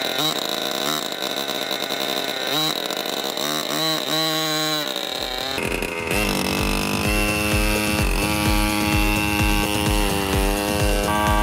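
Small 49cc two-stroke scooter engine revved in short throttle blips, its pitch rising and falling several times. About five seconds in, electronic music with a steady beat takes over.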